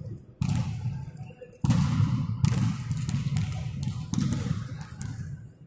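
A volleyball being struck and bouncing on the court: about four sudden thuds a second or so apart, each echoing and fading slowly in a large indoor sports hall.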